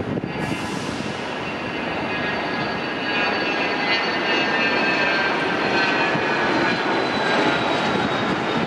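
Cessna Citation Latitude business jet's twin Pratt & Whitney Canada PW306D1 turbofans at climb power just after takeoff: a steady roar with a high whine that slowly falls in pitch, growing louder about three seconds in as the jet comes closer.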